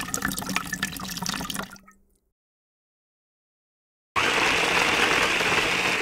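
Liquid is poured into a paint tin, a splashing pour that tails off about two seconds in: the hardener going into the base of a two-part epoxy floor paint. After a short silence, an electric drill with a mixing paddle starts and runs steadily in the tin, stirring the two parts together.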